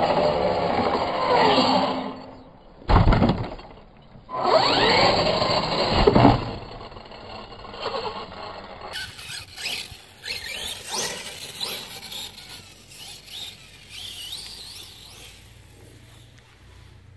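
Radio-controlled car motors whining, the pitch rising and falling with the throttle, loud in the first seconds and again about five seconds in. A sudden knock comes about three seconds in, and after about nine seconds the whine is fainter.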